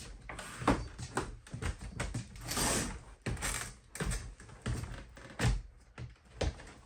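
Irregular plastic clicks and knocks from handling a smoke detector while its battery is changed, with a short rustling stretch about two and a half seconds in.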